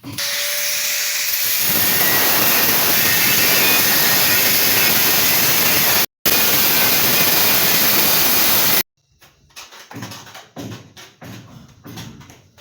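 A power tool running loudly and steadily, with a very brief drop-out partway through, then stopping abruptly about nine seconds in; quieter scattered knocks follow.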